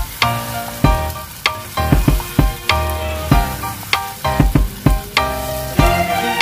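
A spatula stirring and scraping through thick green-chili sambal with eggplants and blood clams frying in a saucepan: a sizzle with repeated scraping strokes, about one every half second to second.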